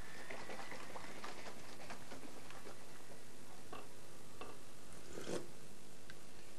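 Dinner-table sounds: cutlery and crockery giving scattered small clicks and clinks, the sharpest about five seconds in, over a steady background hum.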